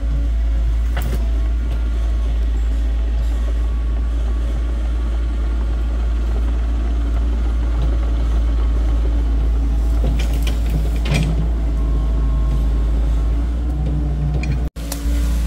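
Small crawler excavator's diesel engine running steadily as the machine travels on its tracks, with a few short metallic clanks about a second in and again about two-thirds of the way through.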